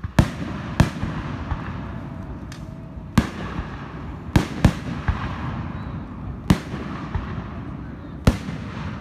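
Aerial firework shells bursting: about seven sharp bangs at uneven intervals, two in quick succession around four and a half seconds in, with a rumbling echo lingering between them.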